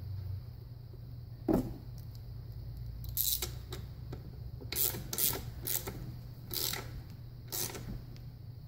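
Hand socket ratchet clicking in several short bursts, tightening the front servo plug into a Hydra-Matic automatic transmission case, with a single knock about a second and a half in.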